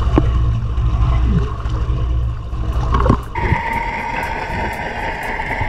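Seawater sloshing and splashing around a camera held at the surface against a boat's hull, over a low steady rumble. About three seconds in it changes abruptly to the muffled underwater sound: a steady hum with faint, evenly spaced ticks.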